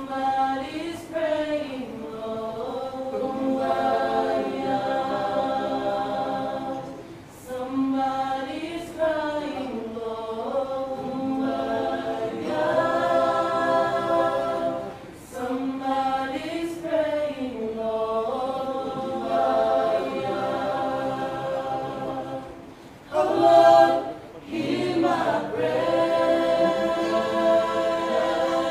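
A choir singing unaccompanied in several voice parts, holding long notes in phrases that break off briefly every few seconds.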